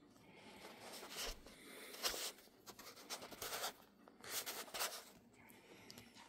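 Faint scratchy rubbing and rustling in several short spells, like a phone or object being handled against a hard surface.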